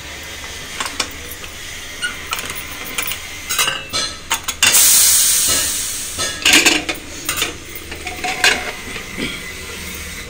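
Steam hissing out of an aluminium pressure cooker as its whistle weight is lifted with a utensil to release the pressure; the hiss starts about halfway through and fades over a second or so. Metal clinks and knocks come before and after it as the weight, handle and lid are worked.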